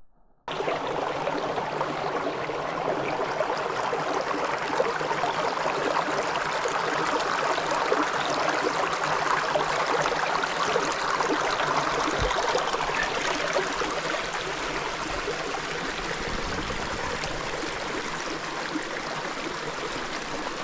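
Shallow stream running and splashing over rocks, a steady rush of water that starts suddenly about half a second in.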